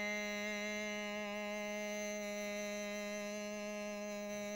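One singer holding a single long, steady note of Hmong kwv txhiaj sung poetry, the drawn-out vowel that carries a line of the song.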